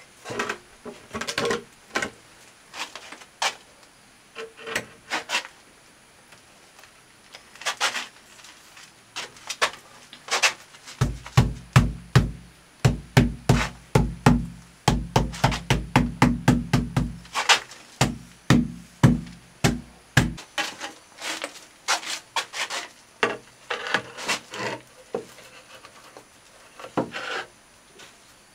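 Tiles being tapped down by hand: quick, irregular runs of sharp taps and knocks. The taps turn deeper and more thudding for a stretch in the middle.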